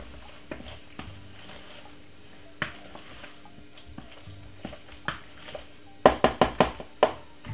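Wooden spoon stirring broccoli through a thick cheese sauce in a plastic bowl: soft wet scraping with scattered light knocks, then a quick run of sharp knocks about six seconds in.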